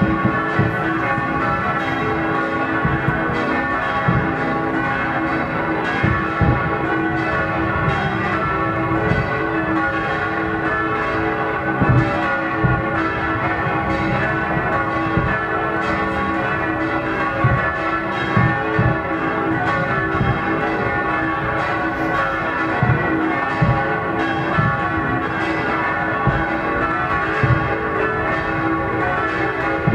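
Church bells pealing without a break, with scattered low bangs from fireworks every few seconds.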